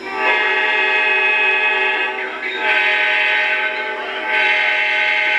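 A model diesel locomotive's electronic sound system blowing its multi-chime air horn in three blasts: a long one, a shorter one and a short one.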